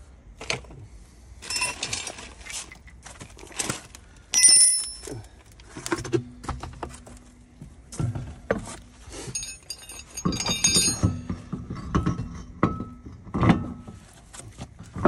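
Metal tools and brake parts clinking, knocking and clanking by hand during a car brake-pad change, with brief metallic rings about four seconds in and again around ten seconds in.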